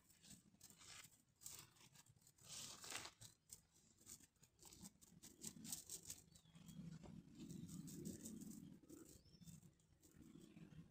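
Near silence, with faint rustles and light ticks of a cast net being handled and gathered up in the hands, mostly in the first few seconds.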